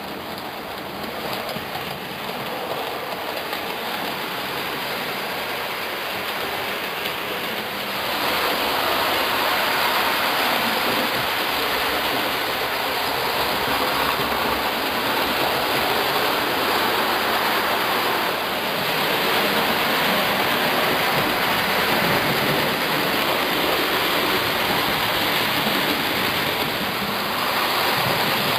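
OO scale model trains running on the layout track: a steady whirring, rushing rumble of electric motors and wheels on the rails, getting louder about eight seconds in.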